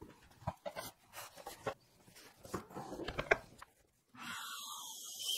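Knocks and clatter of an aluminium track-saw rail and a track saw being set down on a wooden slab. About four seconds in, a steady rushing noise starts.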